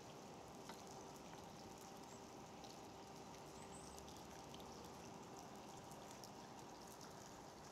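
Light rain falling on a river: faint scattered drop ticks over a quiet, even hiss, with a faint steady hum underneath.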